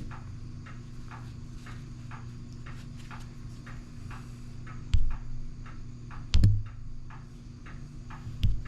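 Rhythmic scrubbing strokes, a few a second, as rust is rubbed off a metal maple-tubing hand tool. A few sharper knocks come about five, six and eight seconds in.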